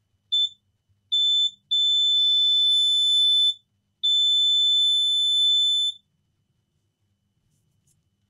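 Multimeter continuity beeper sounding as the test probes touch points on a circuit board: two short high-pitched beeps, then two longer ones of about two seconds each. Each beep means the probes have found a connection between the two points.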